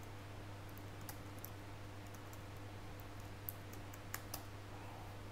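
Typing on a computer keyboard: a scattered run of light keystroke clicks, over a steady low electrical hum.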